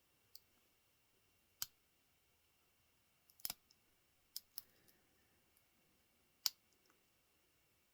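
A handful of small, sharp metallic clicks at uneven intervals from picking a Master Lock 570 aluminium-bodied padlock with a short flat hook and a bottom-of-keyway tension wrench: the hook lifting the pins, with pins setting at the shear line.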